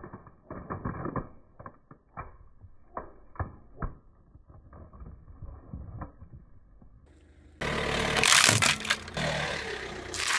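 Water beads spilling from a crushed plastic tub and bouncing on asphalt, slowed down: a string of irregular soft taps and clicks, muffled. About seven and a half seconds in, a much louder, fuller noise takes over.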